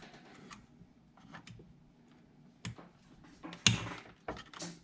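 Light clicks and knocks of hands pushing hose fittings onto a plastic cold air intake tube, with a sharper, louder knock and scrape about three-quarters of the way through.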